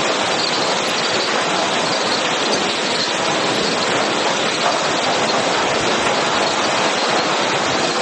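Sawmill lumber-handling machinery running: chain transfers and rollers of a waterfall grading line carrying hardwood boards, a loud, steady mechanical din.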